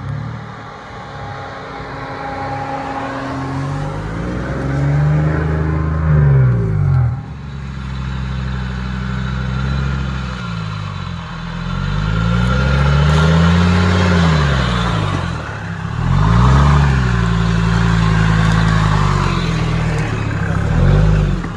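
Off-road vehicle engine revving up and falling back again and again under throttle, loud and close.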